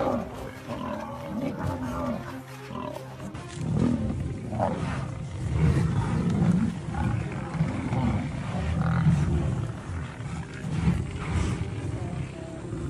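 Lions growling and snarling, a low uneven rumble that swells several times.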